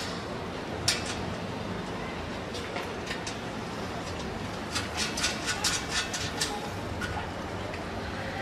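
Spanner clinking against nuts and bolts as they are tightened on the air conditioner's mounting: one sharp click about a second in, then a quick run of clicks about five seconds in, over a steady low rumble.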